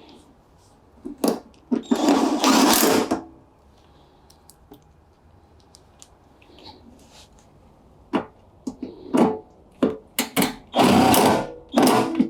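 A cordless drill-driver whirs in bursts of about a second, twice, driving screws back into the washing machine's panels, with shorter bursts and clicks of screws and parts being handled in between.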